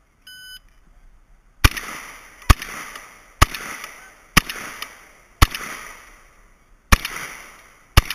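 A shot-timer start beep, then a shotgun fired seven times in quick succession, about one shot a second, each shot echoing.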